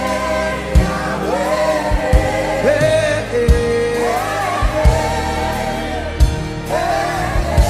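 Gospel worship song: voices holding long sung vowels over steady backing chords, with a drum beat every second or so.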